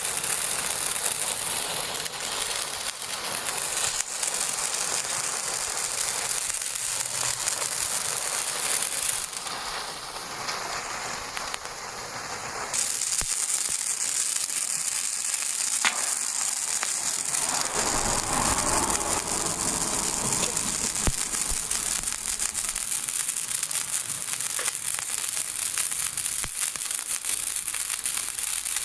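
Small fireworks spraying sparks with a steady, loud hiss; the hiss drops away for about three seconds a third of the way in, then a fresh one flares up suddenly and hisses on.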